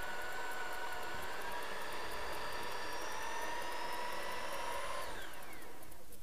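Corded electric drill running under load as it drills the button head off a fixing on a steel motorcycle silencer. Its steady whine rises slightly in pitch, then the trigger is released about five seconds in and the motor winds down.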